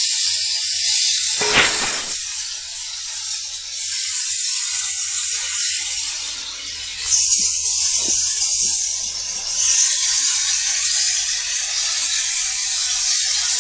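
Superfogger TH 160 thermal fogger running and discharging fog, a steady hiss with a brief knock about one and a half seconds in.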